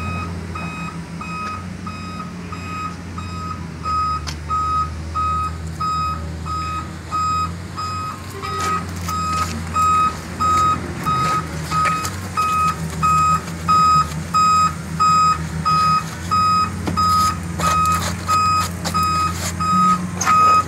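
Truck backup alarm beeping steadily, about two beeps a second, over the low hum of the dump truck's diesel engine running. From about eight seconds in, sharp metal clinks and knocks of chains and coupling gear being handled.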